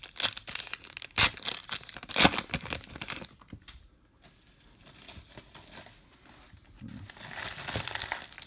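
Wrapper of a Topps Star Wars trading card pack crinkling and tearing as it is opened, with several sharp crackles in the first two and a half seconds and a longer rustle near the end.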